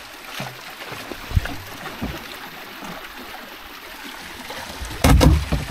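Kayak paddling: water trickling and lapping around the plastic hull, with a few light knocks. About five seconds in comes a louder bump as the kayak's bow runs into the glacier ice.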